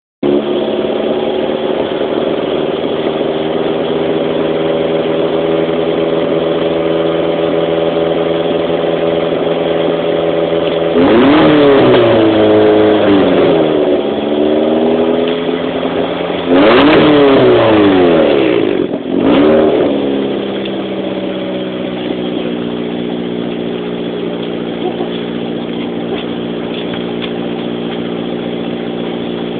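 Car engine idling steadily, revved twice, each time the pitch climbing quickly and then sinking back to idle, with a short blip of the throttle just after the second rev.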